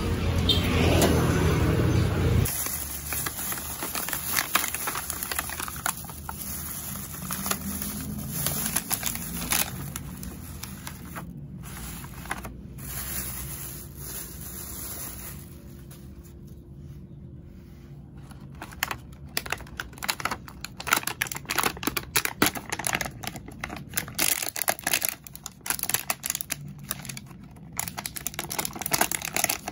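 Clear plastic clamshell takeaway boxes handled and opened by hand: crinkling and rapid sharp clicks of the thin plastic lids, busiest in the last ten seconds. The first couple of seconds are busy outdoor market noise with music, cut off suddenly.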